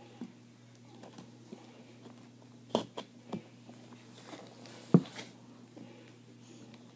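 Scattered clicks and knocks of small craft pieces being handled, bent and set down on a table: a cluster a little under three seconds in and a sharper knock about five seconds in, over a steady low hum.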